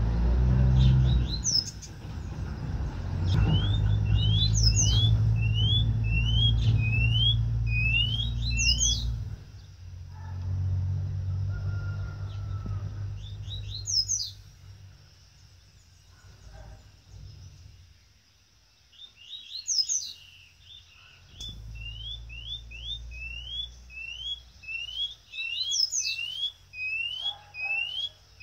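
A chorão (white-bellied seedeater) singing from its cage: phrases of short rising whistled notes, about three a second, each phrase opening with a few higher notes. It sings three times, with a pause in the middle. A low rumble runs under the first half and comes back for a few seconds near the end.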